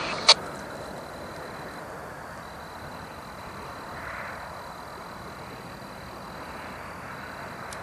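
Steady, faint, distant vehicle noise with no distinct events, after a brief click at the very start.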